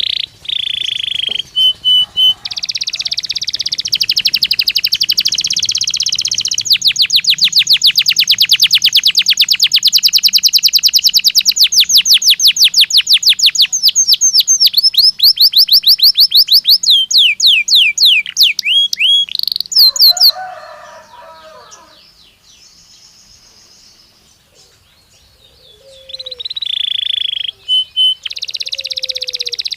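Belgian canary singing: long rapid trills and rolls of fast repeated notes, then quick sliding notes. A brief lower call comes about two-thirds in, followed by a pause of a few seconds before the singing starts again.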